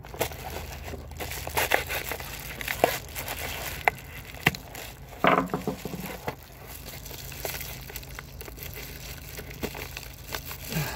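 Plastic bubble-wrap packaging crinkling and crackling as gloved hands cut and pull open a hydraulic seal pack, with the loudest rustle about five seconds in.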